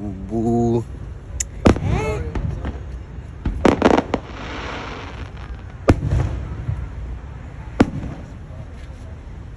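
Fireworks going off: single sharp bangs a second or two apart, with a quick cluster of pops about four seconds in followed by a short crackling hiss.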